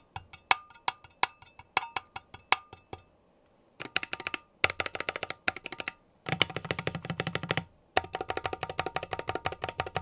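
Stabilized keys (spacebar, shift, enter) on a Keychron Q1 aluminium keyboard pressed and released, each stroke a sharp clack followed by a short metallic ping. The presses come about two a second at first, then in quick rattling runs from about four seconds in. The ping shows the board is pingy, which the builder blames on a thin strip of case metal under the F-row ringing like a tuning fork.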